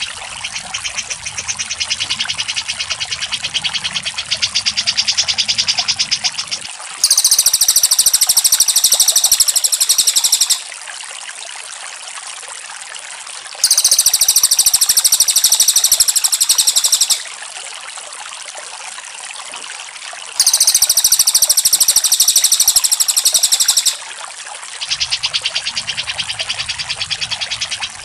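Songbird tutoring recording of cucak jenggot and cililin calls: a fast run of repeated chattering high notes with a low hiss underneath, broken three times by a louder, very high, rapid buzzy trill lasting about three and a half seconds.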